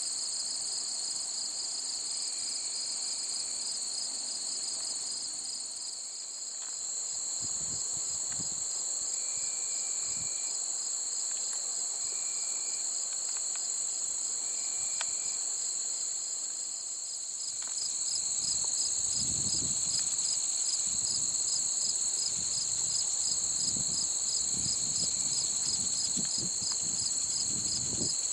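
Crickets and other insects singing steadily in a dense chorus: one high continuous trill and, below it, a rapidly pulsing trill that grows a little louder about two-thirds of the way in. Soft low thuds come now and then from about a quarter of the way in, most often in the second half.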